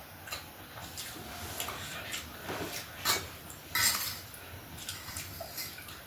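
Eating: chewing with light clinks of cutlery against dishes, and two louder clatters about three and four seconds in.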